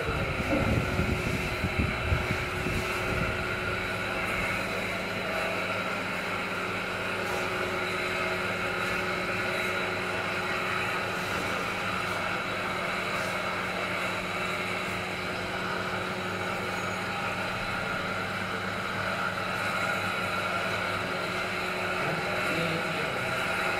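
Paper plate making machine running: a steady motor hum with several constant tones, faint clicks now and then, and a few low knocks in the first couple of seconds.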